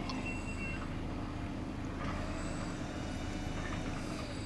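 Diesel engine of earthmoving equipment running steadily, a low even drone.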